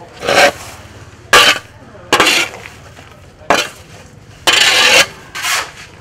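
A shovel scraping into a pile of small fish and tossing them, about six scoops, roughly one a second, the one near the end the longest.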